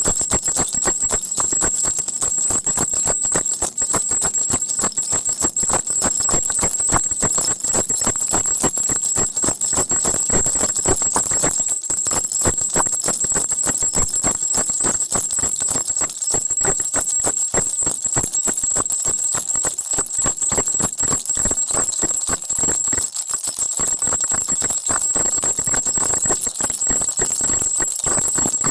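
Crocodile baby rattle shaken continuously: dense, rapid rattling with a steady high ring above it.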